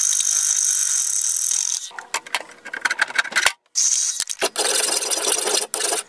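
Hacksaw blade cutting into a steel bolt turning in a mini lathe's chuck: a steady rasping hiss with a high whine. It breaks off about two seconds in into irregular scraping and knocks, and the steady cutting sound returns briefly about two-thirds of the way through.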